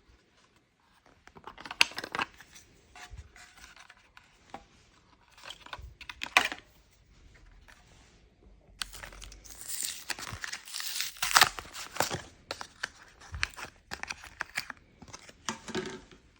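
Hands working on a solar security light during a battery change: irregular clicks and handling noises, with a longer, louder noisy stretch about nine to twelve seconds in.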